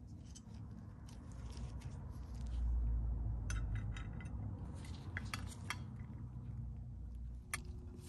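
Chrome-plated metal seat-hinge parts clinking and tapping as they are handled and greased on a workbench, a cluster of light metallic clicks in the middle and one more near the end, over a low rumble that is loudest in the middle.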